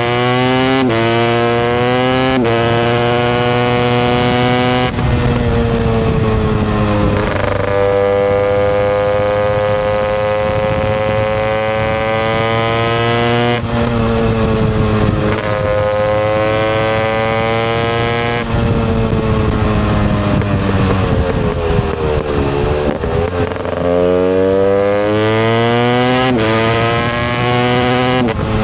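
Husqvarna TE 250i two-stroke dirt bike engine under way, revs climbing in short pulls with sudden drops between them as it shifts up through the gears. The revs then hold fairly steady, fall off about two-thirds of the way in, and climb again through more upshifts near the end.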